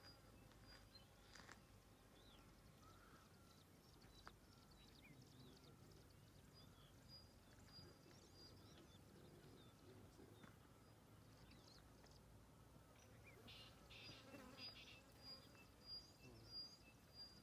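Near silence: faint open-air ambience with scattered small high chirps and a short high note repeated several times, thickest near the end.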